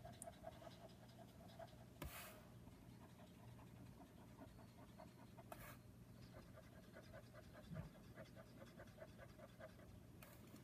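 Near silence: faint room tone with a soft, rapid rhythmic rasp and a few faint ticks.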